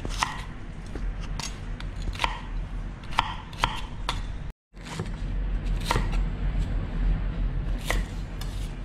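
Chef's knife chopping onion on a wooden cutting board: irregular sharp knocks as the blade meets the board, over a steady low hum. The sound cuts out for an instant a little past halfway, then the knife cuts garlic chives with a few more spaced knocks.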